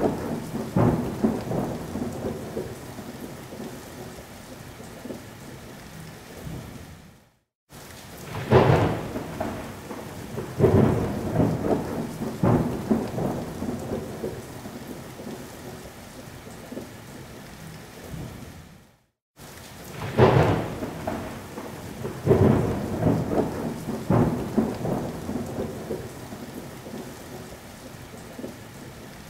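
Thunderstorm: thunder rumbling over steady rain. The same stretch of storm sound repeats, each round opening with a loud clap and roll of thunder that dies into rain, with brief cut-outs to silence between rounds.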